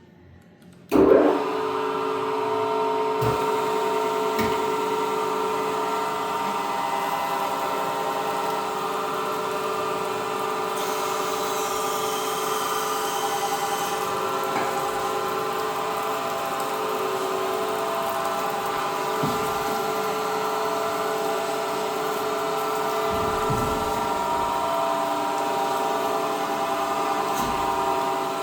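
Three-phase surface grinder switched on about a second in, then running steadily with a whine of several steady tones.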